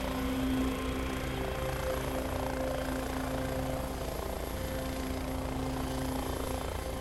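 Turbine helicopter running on the ground with its rotor turning: a steady engine whine over a fast, even rotor chop.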